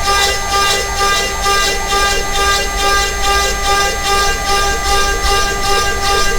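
DIY CNC router's spindle whining steadily while a single-flute end mill cuts plywood. The cutting noise swells and fades about two or three times a second.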